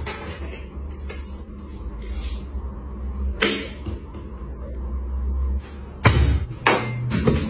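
Handling sounds at a front-loading washing machine as laundry is loaded, over a steady low hum that stops a little after five seconds in. The door is then pushed shut with a knock about six seconds in, with another knock shortly after.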